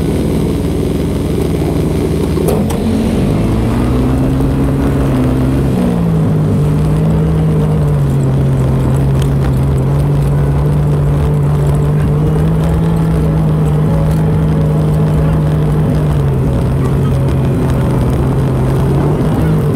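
ATV engine running while riding a dirt trail. It revs up about three seconds in and eases back near six seconds. After that it holds a steady drone, dropping slightly in pitch near the end, over a constant low rumble.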